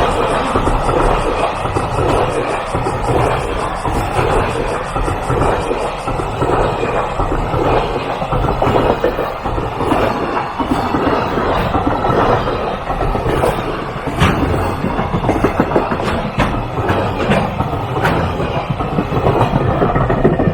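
Freight train passing close by: a steady, loud rush of steel wheels on rail, with sharp clickety-clack clicks as the wagon wheels cross rail joints, more of them in the second half.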